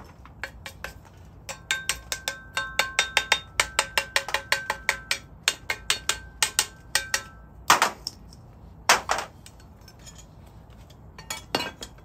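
Steel tool clinking against a steel sand-casting flask: a quick run of ringing metal taps, about four or five a second, then two heavier knocks and a short rattle of clinks near the end.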